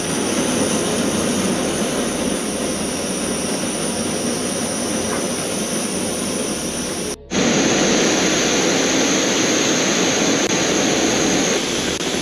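MSR WhisperLite Universal camping stove burning canister gas at full flame: a steady roar from the burner. It cuts out for a moment about seven seconds in, then carries on a little louder.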